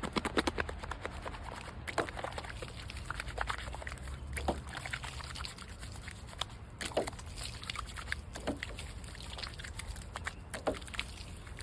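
Water trickling and dripping, with irregular sharp drips and splashes.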